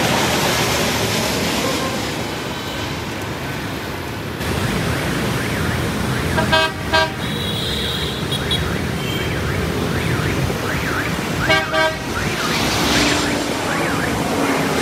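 Jet airliner engines running as a Korean Air Airbus A321neo passes low overhead on approach. After a cut, steady road-traffic noise with two double toots of vehicle horns, about six and eleven seconds in.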